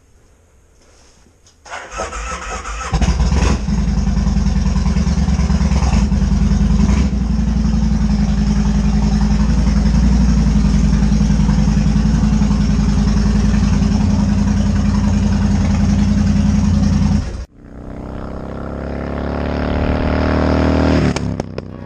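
A 2007 Kawasaki Vulcan Mean Streak 1600's V-twin is cranked over for about a second, catches, and idles loudly and steadily (a cold start in winter). After an abrupt cut, the motorcycle is heard coming up a road, its engine rising in pitch and growing louder as it accelerates.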